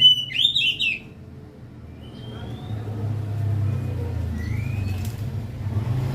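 Oriental magpie-robin singing: a loud burst of rich warbled notes in the first second, then a few thin rising whistles, over a low steady hum.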